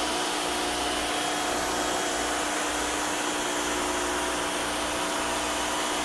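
Rock & Rocker 3000 PSI electric pressure washer running under load while spraying through a 15-degree tip: a steady motor hum with a constant whine over the hiss of the water jet striking a garage door.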